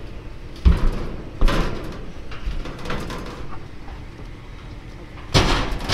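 Thumps, bangs and scraping of a metal dumpster and the junk inside it being climbed on and handled: two sharp knocks about a second in, then a louder burst of banging and rattling near the end.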